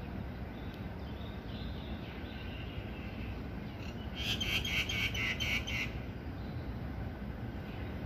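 A myna calling: a few faint high whistles, then about halfway through a quick run of about eight loud repeated notes lasting under two seconds. A steady low rumble runs underneath.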